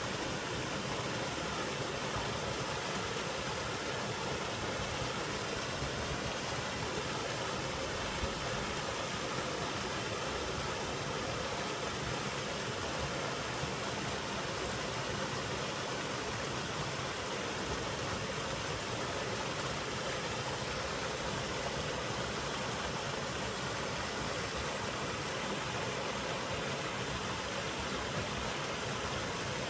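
Small waterfall on a mountain stream pouring into a rock pool: a steady, even rush of water.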